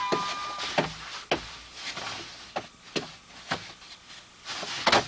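A string of sharp knocks and taps, spaced unevenly, with the loudest one near the end.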